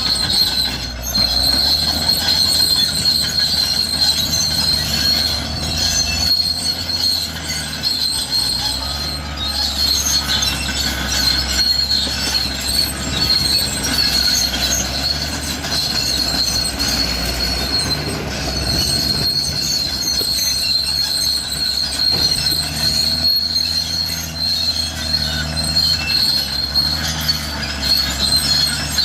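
Cat D6R crawler bulldozer at work: its steel tracks squeal continuously at a high pitch over the steady drone of the diesel engine.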